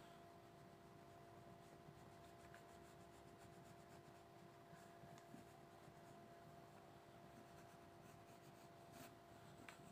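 Faint, continuous scratching of colouring on paper, over a steady low electrical hum.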